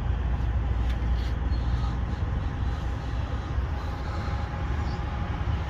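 Steady low hum and rumble of a running engine, with no distinct knocks or clicks.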